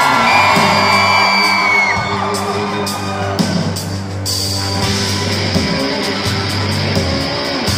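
Live rock band playing: drum kit, electric bass and electric guitars through amplifiers, with a steady bass line and high held notes in the first two seconds.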